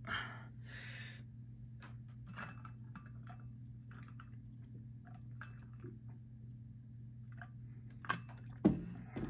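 A person drinking water from a bottle to cleanse the palate: small, faint swallowing and mouth sounds, with a couple of louder knocks near the end as the bottle is handled. A steady low hum runs underneath.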